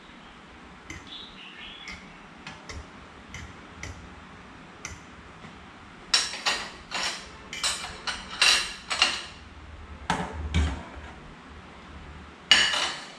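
Metal utensil clinking against a small ceramic dish: faint scattered taps at first, then about halfway through a quick irregular run of sharp, ringing clinks, a duller knock, and one louder clink near the end.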